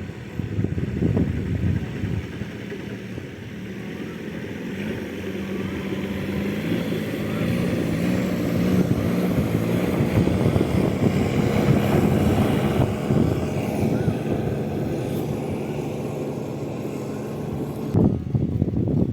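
A motor engine running steadily. It grows louder toward the middle and then fades, as a passing vehicle or boat does.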